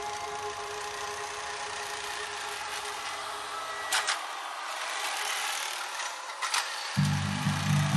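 Case TV450 compact track loader's diesel engine running as the machine tracks past pushing blacktop millings with its bucket, with two short knocks partway through. Background music comes in near the end.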